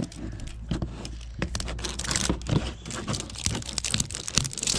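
A toy blind bag's packaging crinkling and tearing as it is ripped open by hand, with a quick run of irregular crackles and rustles.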